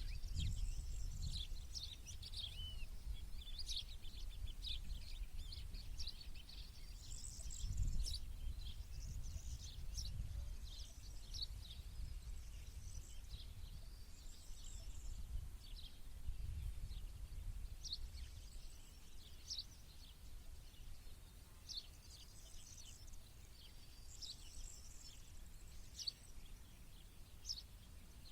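Several small birds chirping and singing, with short high calls and trills overlapping throughout, over a steady low rumble.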